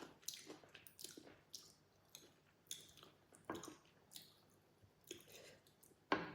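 Close-up mouth sounds of a person chewing food, soft and irregular, with moist squishy and crisp crunching bites and a sharper click near the end.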